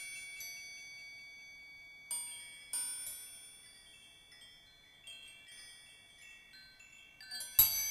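Chimes: high metallic tones struck at irregular moments, each ringing and slowly dying away. There are two strikes about two and three seconds in, a few faint scattered tones after them, and a dense, louder flurry of strikes near the end.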